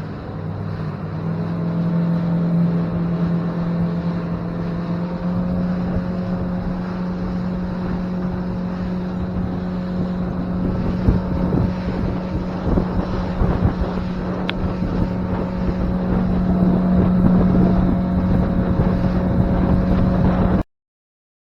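A motorboat's engine running steadily under way, its pitch stepping up about a second in as it speeds up, with wind buffeting the microphone. The sound cuts off abruptly near the end.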